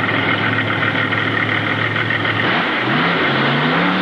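Mud-racing vehicle's engine idling steadily, then revved up twice in the last second and a half.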